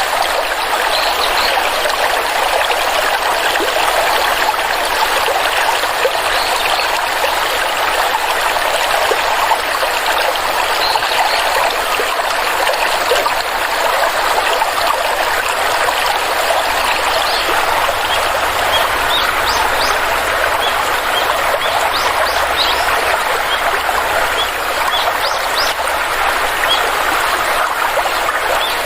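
Stream water flowing and trickling in a steady, even rush. Short, faint, high chirps come now and then, more often in the second half.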